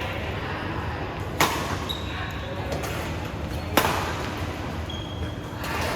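Badminton rackets striking the shuttlecock twice during a rally, sharp cracks about two and a half seconds apart.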